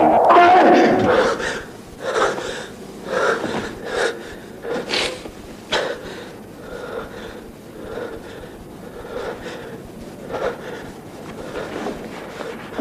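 A man gasping and coughing in short, harsh breaths, the strongest spaced about a second apart over the first few seconds, then softer breathing. A burst of film music dies away in the first second.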